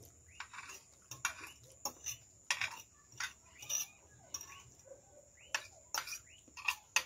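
Eating sounds: wet chewing and lip smacks mixed with forks clicking and scraping on plates, in an irregular string of short sharp clicks.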